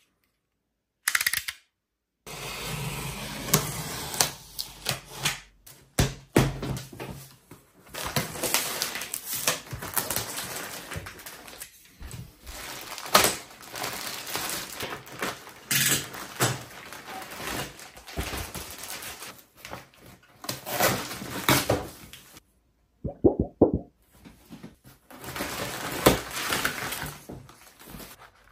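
A utility knife cutting packing tape and plastic wrap, and a cardboard box being opened and handled. The sound is an irregular run of scrapes, rustling, crinkling and knocks, with a brief pause near the end.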